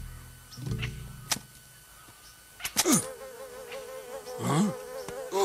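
Buzzing of flying insects, a steady wavering drone that starts about halfway through. Before it come low, held sounds and a couple of sharp knocks.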